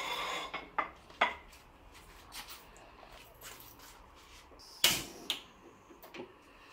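Kitchen handling noises: a scatter of separate clinks and knocks of dishes and utensils, with the loudest sharp knock about five seconds in.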